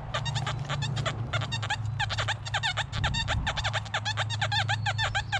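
XP Deus metal detector sounding over a target as the coil is swept: a steady low iron tone with a fast run of short, warbling higher beeps over it. The signal is a high-conductor target mixed with iron, giving broken, funky tones.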